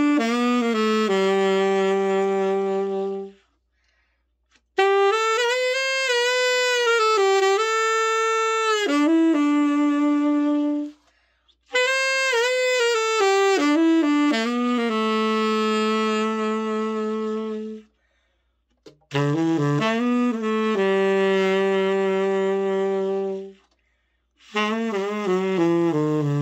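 Black-nickel Cannonball GT5-SB tenor saxophone played solo in five short melodic phrases, each ending on a held note, with brief pauses between; the last phrase steps down into the low register near the end. This is a play test of the horn after a full overhaul.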